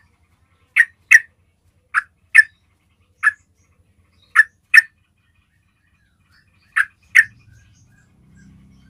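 Yellow-vented bulbul giving short, sharp calls, mostly in pairs less than half a second apart, repeated every second or two, with a longer gap before the last pair. A faint low rumble comes in near the end.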